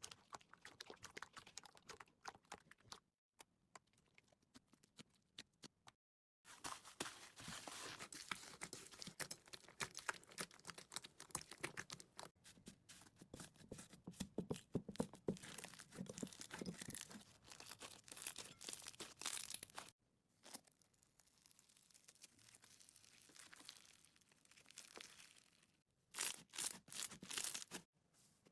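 Slime being squeezed and played with by hand, giving dense crackling and popping clicks. It comes in several stretches broken by short silent gaps.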